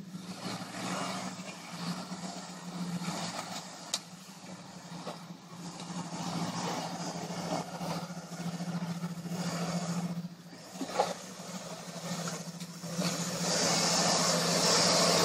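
Lifted Jeep Wrangler's engine running at low, steady revs as it crawls along a leaf-covered trail, with a couple of sharp cracks from under the tyres. Near the end it gets much louder as it comes close, with a rising crunching hiss of tyres through dry leaves.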